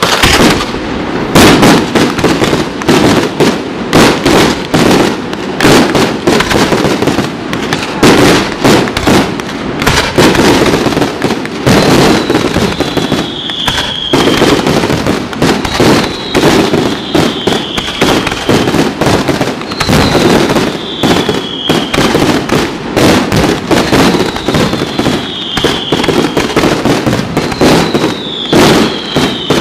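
Fireworks display in full barrage: shells and comets launching and bursting in rapid, overlapping reports with crackle. From about the middle on, a short falling whistle comes back roughly every four seconds.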